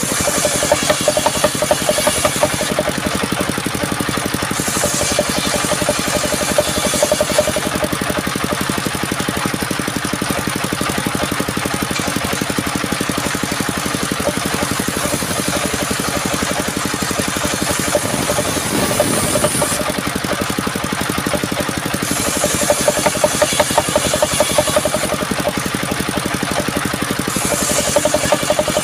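An engine driving a sawing machine, running steadily at a constant speed. Several times, a high hiss lasting two to three seconds rises over the engine.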